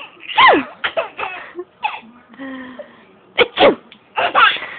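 A 7-month-old baby laughing in short bursts, with a woman's loud fake sneezes about three and a half seconds in.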